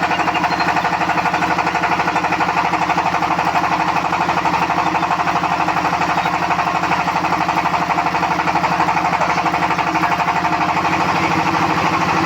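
An engine running steadily with a fast, even pulse and no change in speed.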